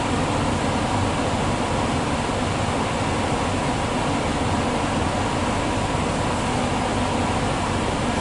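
Steady cabin noise inside an NS ICMm intercity electric train: an even rumble and hiss with a faint steady hum.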